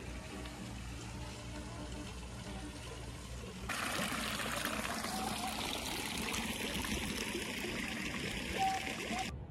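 Outdoor tiered fountain with water spouting and splashing steadily into its basin. It comes in suddenly a little over a third of the way in and cuts off abruptly just before the end. Before it there is only a faint low background hum.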